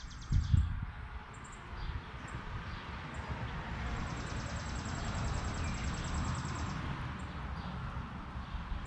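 Outdoor ambience: a rapid, evenly pulsing high buzz, like an insect's, stops about half a second in and comes back from about four to seven seconds in, over a steady low rumble. There is a thump near the start.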